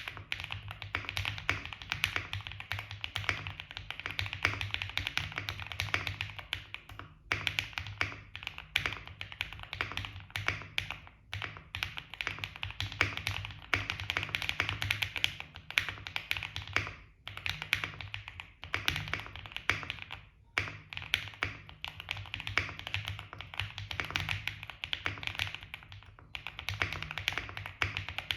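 Lubed KTT Strawberry linear switches on a QK65 keyboard with an FR4 plate and no case foam, typed on quickly: a dense stream of keystrokes broken by a few short pauses.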